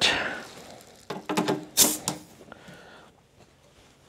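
Pneumatic quick-connect coupler on an air hose being pushed onto a plasma cutter's air inlet fitting: a short hiss of air, then a few sharp metallic clicks and knocks, the sharpest about two seconds in.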